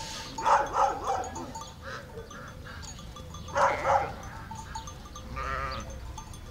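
Sheep bleating: two loud wavering bleats about half a second and three and a half seconds in, and a fainter one near the end. Small sheep bells clink faintly in between.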